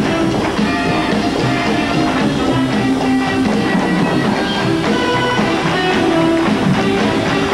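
Brassy show-tune music from a musical's orchestra with a steady beat, accompanying a tap-dance production number.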